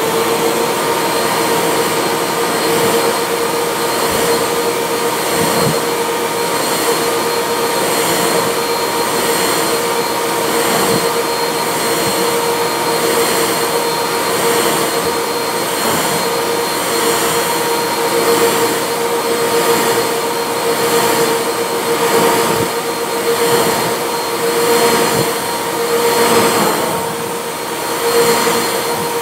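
Bissell upright vacuum cleaner running steadily with a humming whine as it is pushed back and forth through a pile of fluff on a rug, its sound swelling and dipping slightly with each stroke.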